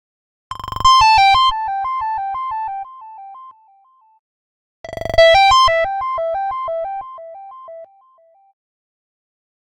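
Stock Android phone tone: a quick melody of short, bright keyboard-like notes, played twice. Each pass fades away in steps.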